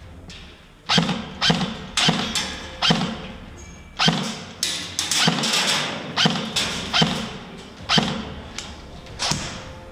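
Heavy footsteps, about two thudding steps a second with a gritty scrape on each, starting about a second in.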